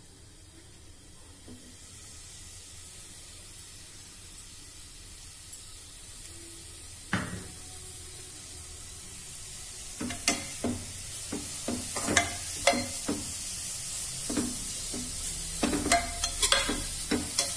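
Grated carrot frying in hot ghee in a pan, a steady sizzle that builds over the first couple of seconds. There is a single knock about seven seconds in. From about ten seconds, a steel spoon stirs and scrapes against the pan in irregular clicks while the sizzle goes on.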